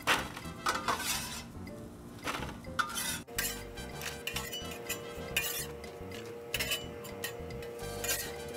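A metal spatula scrapes across a steel griddle top again and again, and fries clatter into an aluminium foil pan with light metallic clinks.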